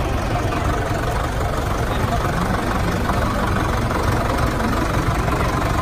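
Ebro Super 55 tractor's engine idling steadily, with people talking around it.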